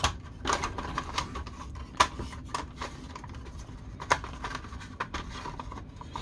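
Hard plastic toy vehicle parts clicking and knocking as they are handled and pressed together, a string of light clicks with a few sharper ones, the loudest about two seconds and about four seconds in.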